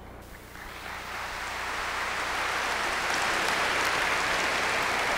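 Audience applauding, building up over the first second or two and then holding steady.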